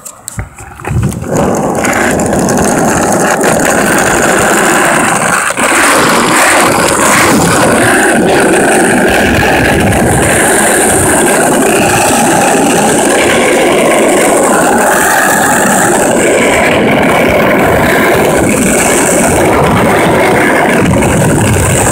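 Skateboard wheels rolling over rough, cracked asphalt: a few knocks as the board gets going, then a loud, steady rumble, with one brief knock about five and a half seconds in.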